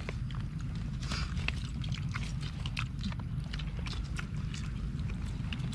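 People eating, with irregular light clicks and clacks over a steady low rumble.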